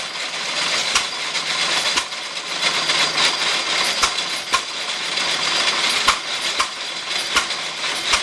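Restored Letz feed grinder running under a hit-and-miss engine: a steady mechanical clatter with sharp knocks about once a second, at uneven gaps.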